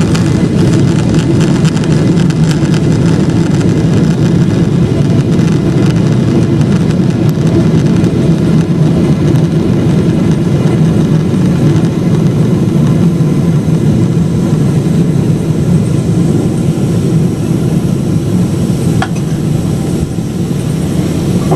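Cabin noise aboard a Boeing 777-300ER just after touchdown: a loud, steady, low rumble from its GE90 engines and the airframe as the airliner rolls along the runway and taxiway.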